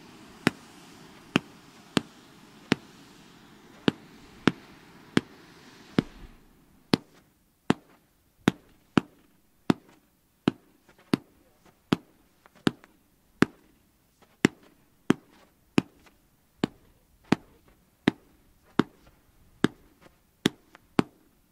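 Fireworks battery firing single shots at a steady pace, about one and a half sharp bangs a second. For the first six seconds, three ground fountains hiss steadily underneath, then cut out.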